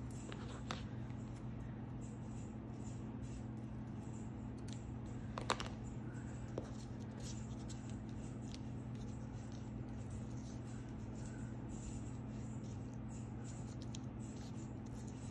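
Light handling sounds of paper and card being moved and pressed on a cutting mat: faint rustles, scrapes and small taps, with one sharper tap about five and a half seconds in. A steady low hum runs underneath.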